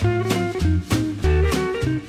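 Background music with a steady beat: a jazzy tune with bass notes, guitar and drums.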